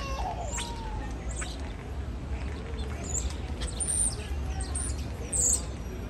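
Common starling singing: a varied run of sharp clicks and short gliding whistles, with louder high whistles about four and five and a half seconds in.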